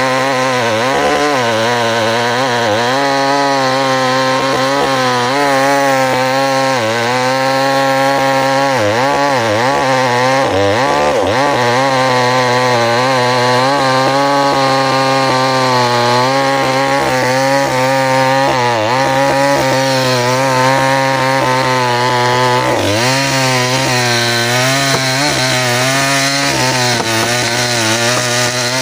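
Small chainsaw running at high revs while cutting through a dense hardwood trunk, its pitch dipping and recovering again and again as the chain bites into the wood.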